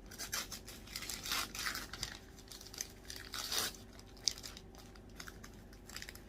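Wrapping paper being torn and crumpled off a present, in a series of rips and rustles with a sharp click a little after four seconds in.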